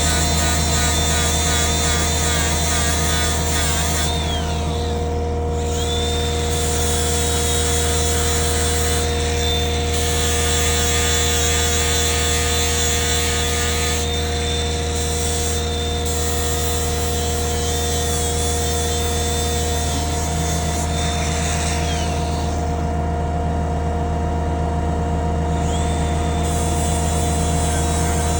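Engine-driven welder running at a steady speed, with the hiss of arc welding stopping and starting several times as welds are laid on the steel posts.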